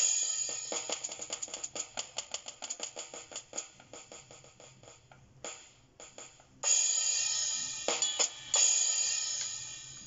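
Electronic drum sounds from an AeroBand PocketDrum 2 air-drum set: a fast run of hi-hat strokes that thins out and fades, then a few cymbal crashes in the second half, the last one ringing out.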